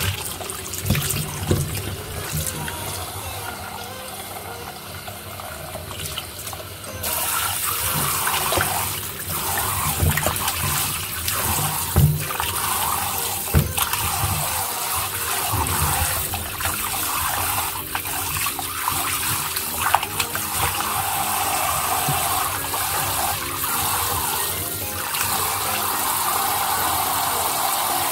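Kitchen tap running into a bowl of raw chicken pieces in a stainless steel sink, with water splashing as a hand rubs and rinses the chicken. The tap's rush comes in about seven seconds in, after some quieter handling.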